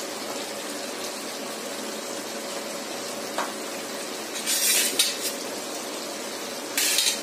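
Chicken pieces and spice masala frying in oil in a steel wok, sizzling steadily. A light click comes a little over three seconds in, and two brief louder bursts of hiss come near the middle and near the end.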